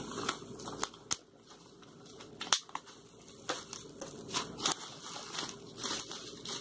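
Plastic bubble wrap crinkling and rustling as it is handled and pulled off a boxed vinyl figure, with scattered sharp clicks and crackles, the loudest about two and a half seconds in.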